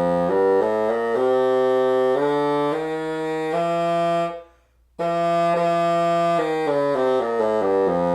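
Bassoon playing two short phrases of notes moving step by step, with a brief break between them. It is a pitch test of a flat reed just reamed to sit farther onto the bocal, and the pitch is moving in the right direction.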